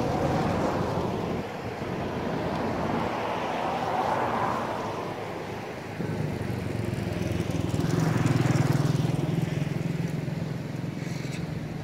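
Motor vehicles passing on a road: one swells and fades about four seconds in, and a louder engine passes about eight to nine seconds in.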